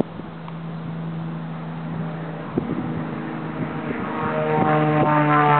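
Cessna 402 twin piston-engine propeller aircraft approaching on its takeoff. A steady engine drone grows louder and fuller over the last second or two.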